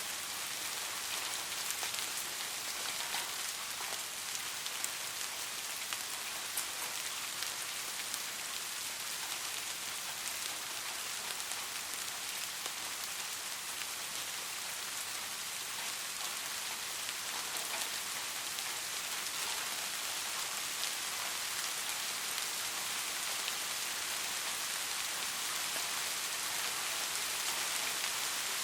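Steady soft rain falling on a surface, an even hiss with scattered individual drop ticks.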